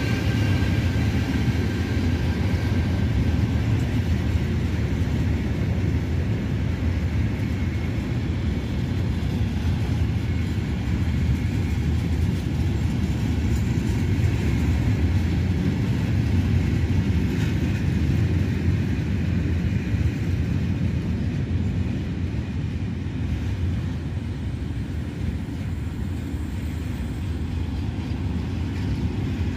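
Freight train of tarpaulin-covered wagons rolling past: a steady low rumble of wheels on the rails.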